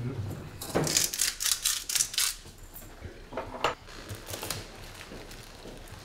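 Kitchen utensils clicking and scraping against pots and dishes: a quick run of sharp strokes in the first couple of seconds, then a few more around the middle, probably as pasta is being served.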